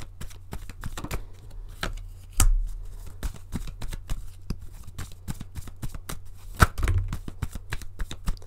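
Tarot cards being shuffled and handled, a run of irregular light clicks and flicks with two louder knocks, about two and a half seconds in and near seven seconds in, over a low steady hum.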